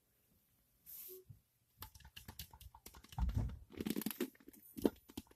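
Close handling noise: crinkling and rustling with many small clicks, starting about two seconds in, with a dull bump a little after three seconds, as squishy toys and their container are handled.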